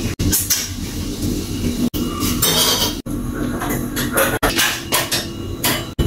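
Kitchen cookware clatter: metal pots, pans and utensils knocking and clinking as they are handled, broken by several abrupt short gaps.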